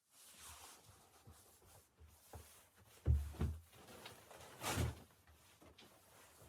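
A few dull knocks and thuds among faint handling and rustling noises, the loudest about three seconds in and another near five seconds.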